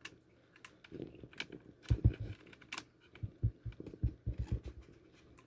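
Irregular small clicks and light low knocks of hands handling a laptop's 2.5-inch hard drive and its drive bay, plastic and metal parts tapping as the drive is worked into place.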